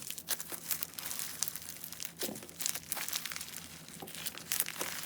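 Slime being squeezed and stretched by hand, making a continuous run of irregular small crackles and pops.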